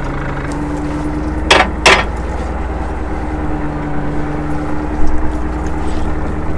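Fishing boat's engine running steadily while the longline is hauled, its note stepping up slightly about half a second in. Two sharp knocks about a second and a half in, and a couple of smaller knocks near five seconds.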